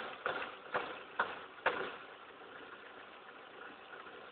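Ford Focus 2.0 DOHC four-cylinder engine idling, with a burst of about five sharp taps roughly half a second apart near the start, then steady running. The tapping comes in rhythmic groups like plastic pieces snapping together, an unfamiliar noise the owner has never heard from this engine before.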